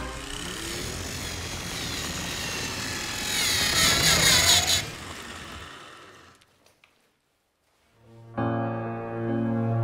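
Film soundtrack: a rushing noise with whistling pitch glides swells and then fades away about six seconds in. After a short silence, a steady, sustained low music chord comes in near the end.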